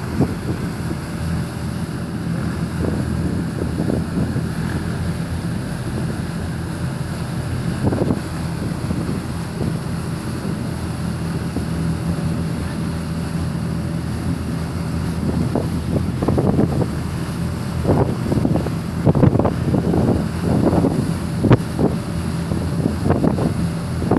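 Passenger ferry under way: a steady low engine drone under the rush of its propeller wake, with wind buffeting the microphone in gusts that grow stronger in the second half.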